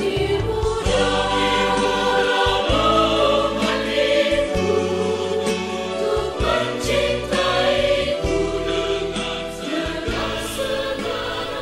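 A choir singing held notes over an instrumental accompaniment with a steady bass line.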